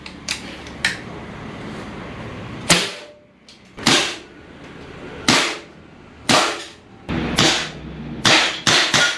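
Air gun shots: about ten sharp cracks, spaced roughly a second apart, with three in quick succession near the end.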